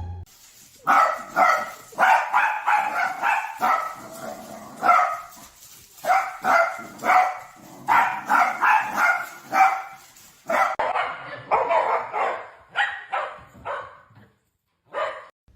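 A dog barking and yipping in quick runs of high barks, with short pauses between the runs.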